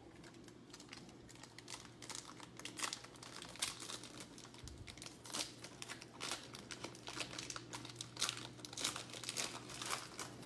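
Trading-card pack wrapper crinkling and being torn open by hand: a run of irregular crackles and rustles.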